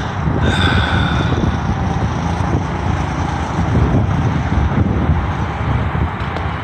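Small go-kart engine droning steadily as the kart runs around the track, with a rough low rumble underneath. A brief high tone sounds about half a second in.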